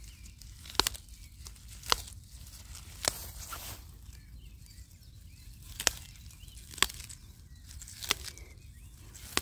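Dandelion stems snapping as the flowers are plucked by hand: about seven sharp snaps, roughly one a second with a gap near the middle, and a brief rustle of grass and leaves between them.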